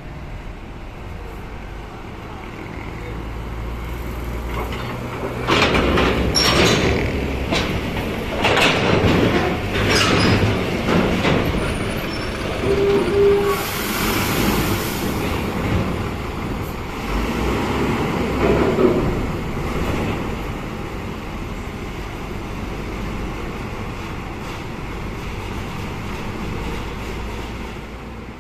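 Intercity diesel coach buses maneuvering at close range: a steady low engine rumble with a run of loud air-brake hisses and clanks in the middle, and a short beep about halfway through.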